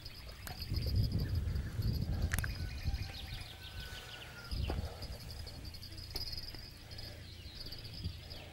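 Insects chirping in a steady, pulsing high buzz. Low rumbling and handling noise runs through the first three seconds, with a sharp click about two and a half seconds in and a dull thump near the middle.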